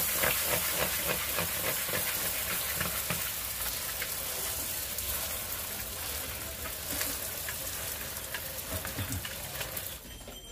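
Fuchka shells frying in a pan of very hot oil: a dense sizzle full of small crackles, easing slightly and then cutting off about ten seconds in.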